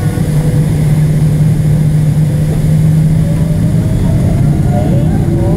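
Steady cabin drone of a Boeing 777-300ER's GE90-115B engines, heard from inside the cabin beside the engine while the airliner rolls on the ground. A constant low hum runs under a broad roar.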